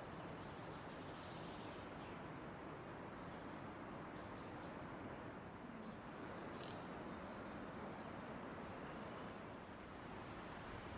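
Forest ambience: a steady outdoor hiss with a few faint, high bird chirps, about four seconds in and again around seven seconds in.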